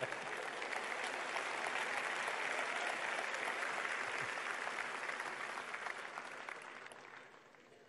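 Audience of students applauding, a steady wash of clapping that swells over the first couple of seconds and dies away near the end.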